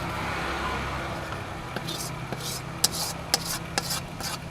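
Noodles sizzling in a wok over a charcoal fire, the hiss strongest at first and fading. From about halfway, a metal spatula clacks against the wok several times, roughly twice a second, over a low steady hum.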